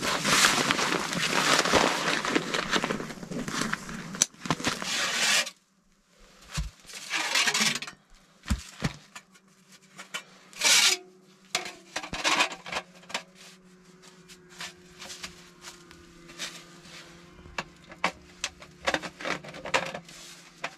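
Loud rustling noise for about five seconds, then an abrupt drop, followed by irregular scraping, rubbing and sharp metal clinks as sections of nesting metal stovepipe are pulled apart and handled at a small wood stove.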